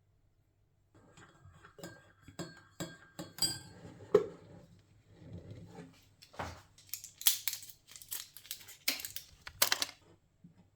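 Objects being handled: a series of sharp clicks and knocks, then several louder rustling, scraping bursts near the end.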